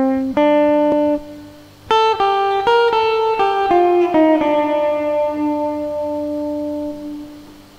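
Recorded electric guitar played back through the BIAS FX 2 amp simulator: a phrase of clean single picked notes, ending on a long note that rings out and fades near the end. Its Space Designer hall reverb is being turned up through the bus send, so more reverb joins the dry guitar as the phrase goes on.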